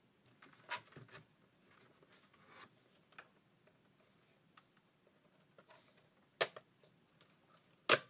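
A Mac Mini's plastic casing being pressed shut and handled: scattered light clicks and rubbing, with a sharp click about six and a half seconds in and a louder one near the end.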